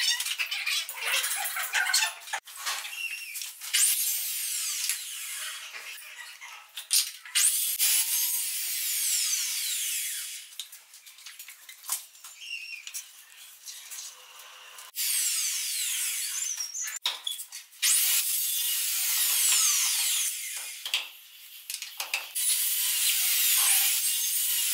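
Electric drill boring into small wooden blocks on hardwood stair treads in several bursts, its whine sliding up and down in pitch as it speeds up and slows, with knocks and scraping of hand work between bursts.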